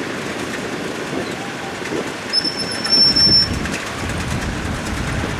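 Kubota DC70 rice combine harvester running steadily, with a single high-pitched squeal lasting about a second, a little over two seconds in.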